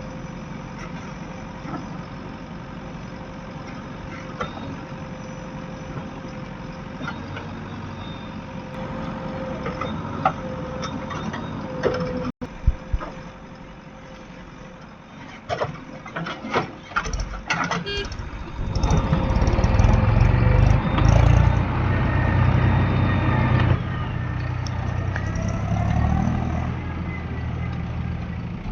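Heavy diesel earth-moving machinery working, its engine running steadily at first, with a cluster of sharp clanking knocks midway. The engine then goes under heavy load and gets much louder and deeper for a few seconds before easing off.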